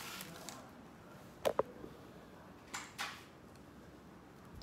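Light handling noises on a table: two quick sharp clicks about one and a half seconds in, then two short rustles a second or so later.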